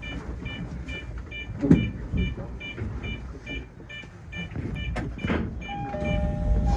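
Evenly repeating electronic warning chime at a station stop, about two to three beeps a second. Near the end it stops and the Tozai Line 05 series train's traction inverter starts up with two steady tones and a rising rumble as the train begins to pull away.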